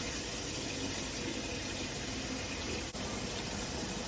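Sink faucet running steadily while hands are washed under it, with a brief dip in the flow sound about three seconds in.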